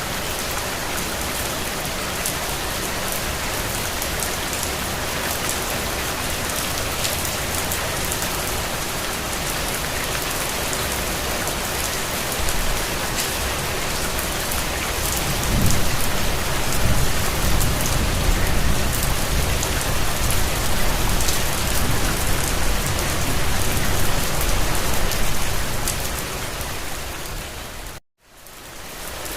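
Steady heavy rain falling, an even hiss of drops on a surface. About halfway through a low rumble swells in and lasts some ten seconds; near the end the sound cuts out for a moment and fades back in.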